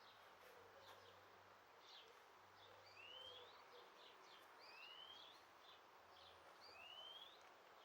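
Faint outdoor birdsong: three rising whistled calls about two seconds apart, with short chirps between them, over a steady background hiss.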